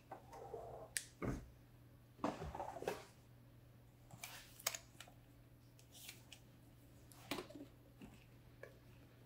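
Scattered light clicks and knocks, with a short stretch of scraping, as a ventilator's battery pack and its metal battery holder are handled and fitted back into place.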